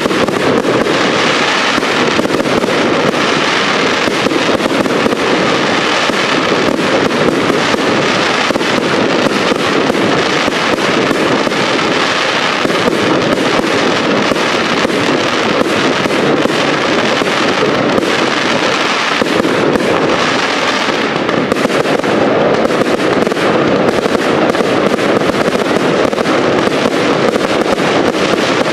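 Professional display fireworks: a dense, continuous barrage of aerial shells bursting, thick with rapid bangs and crackling that never lets up.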